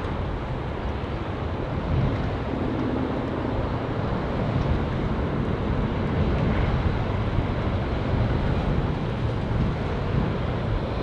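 Wind buffeting the microphone: a steady low rumbling noise, with a faint engine hum about two seconds in.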